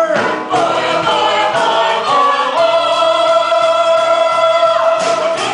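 A musical-theatre cast singing together as a chorus, building to one long held note in the second half that breaks off near the end.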